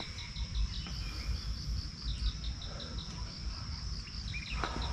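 Insects keeping up a steady high-pitched trill, with runs of short chirps repeating several times a second. A single footstep on the path near the end.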